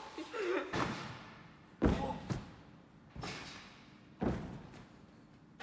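Trampoline bed thumping as a gymnast bounces on it, four bounces about a second apart, each echoing in a large gym hall.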